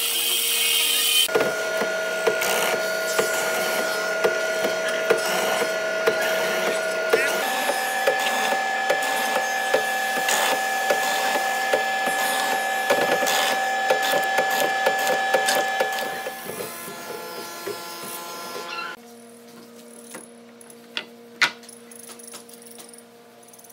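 Band saw running and cutting a hardwood door stile: a steady whine with regular ticks about one and a half times a second, its pitch stepping up partway through. The sound drops away near the end, leaving a quieter shop with a couple of knocks.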